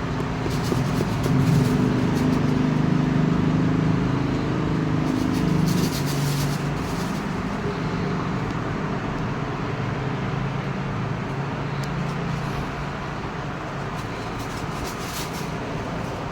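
Road traffic: a motor vehicle's engine runs close by for the first six seconds or so, then fades into a steady traffic hum.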